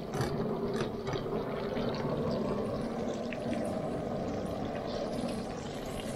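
Hot oil sizzling steadily around a whole yellowtail snapper pan-frying in a cast-iron skillet, with a few light clicks about a second in.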